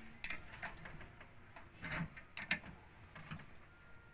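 A steel open-end wrench clicking and clinking on the timing belt tensioner pulley's bolt of a Suzuki F6A engine as the belt tension is set. Several short, sharp metallic clicks, the loudest about two seconds in.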